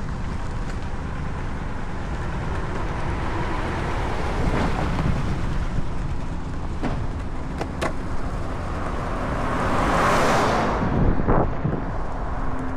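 Longboard wheels rolling over asphalt, a steady low rumble with wind on the microphone, broken by a few sharp clicks about seven to eight seconds in. A car passes about ten seconds in, its sound rising and then falling away.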